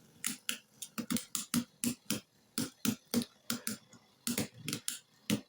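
3D-printed plastic Beyblade spinning tops clashing in a plastic stadium, a string of sharp irregular clacks, several a second.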